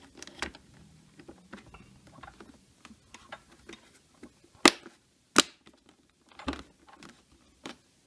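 Plastic switch cover on a coffee maker's base snapping into place: two sharp clicks about 0.7 s apart near the middle, among light rubbing and tapping of the plastic as it is pressed home.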